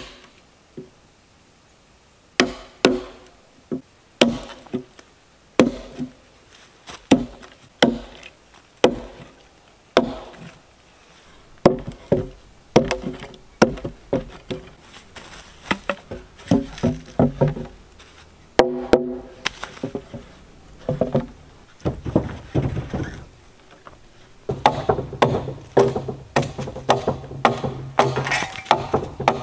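Hatchet chopping into a log, hewing it flat: sharp single strikes about once a second, each with a short woody ring, coming quicker and closer together over the last few seconds.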